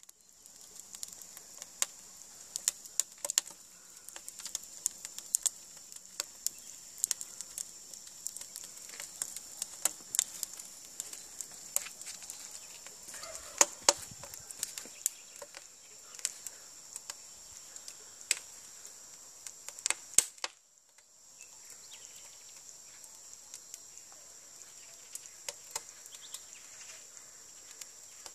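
Irregular sharp taps and knocks of masonry work on an oven build, typical of a trowel or hammer tapping stones and bricks into place, over a steady high hiss. The sound breaks off briefly just after two-thirds of the way through, then the hiss and occasional taps resume.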